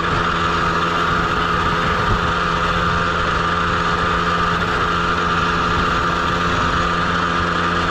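Small 50 cc motorcycle engine running at full throttle on one steady, unchanging note, working hard to pull the bike up a steep grade.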